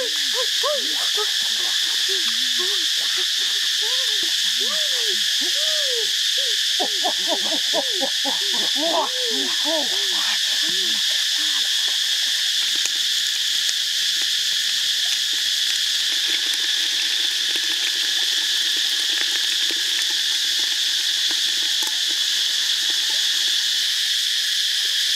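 Steady, high insect chorus with many short frog calls, each rising and falling in pitch, crowding over one another in the first half and stopping about eleven seconds in.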